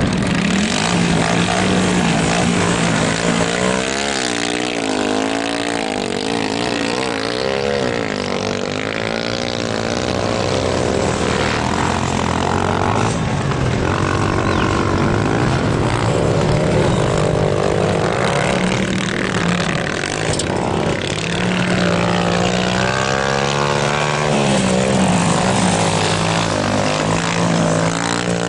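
Motocross dirt bike engines running on the track, the pitch rising and falling again and again as the riders work the throttle through the jumps and turns.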